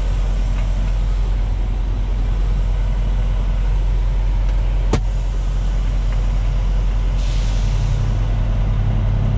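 Straight-piped Peterbilt 389 semi truck's diesel engine idling steadily. There is one sharp click about five seconds in and a hiss from about seven seconds in.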